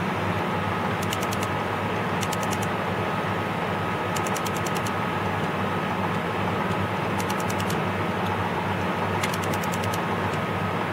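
Clicks from the keypad of an Envirotech APM 550 EL PM2.5 sampler's control module, coming in short clusters of rapid ticks every one to three seconds as an arrow key is pressed again and again. Under them runs a steady mechanical hum.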